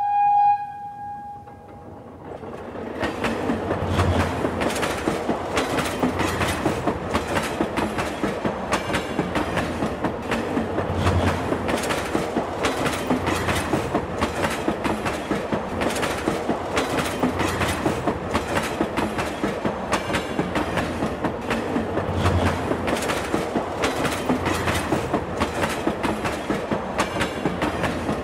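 Battery-powered toy Thomas train running on plastic track: a steady rattle of rapid, regular clicks from its motor, gears and wheels. A short high tone sounds right at the start.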